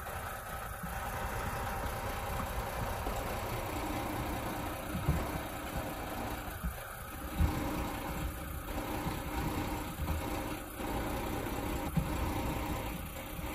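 Car transporter lorry's diesel engine idling steadily, with irregular low thumps.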